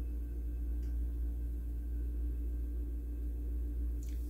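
Room tone: a steady low hum with a fainter steady tone above it, and a faint tick about a second in.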